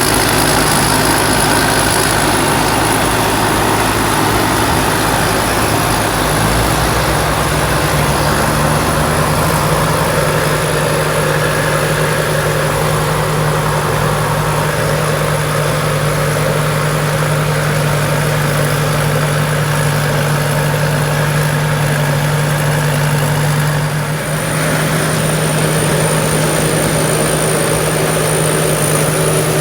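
Engine of a Thai-built crawler combine harvester running loud and steady, with a thin high whine over it. The sound dips briefly about 24 seconds in.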